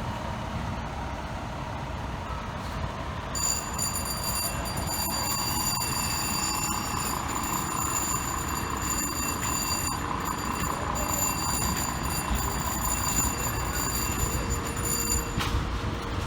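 Fire engine running with a low rumble as it pulls out on a call. From about three seconds in, a steady high-pitched electronic warning tone sounds over it and cuts off suddenly near the end.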